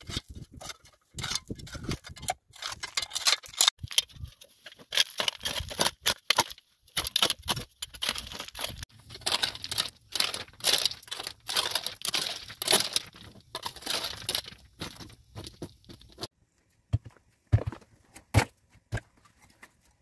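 Irregular rough scraping and rustling, stroke after stroke, from gloved hands working dry stony soil, then a few separate clicks near the end.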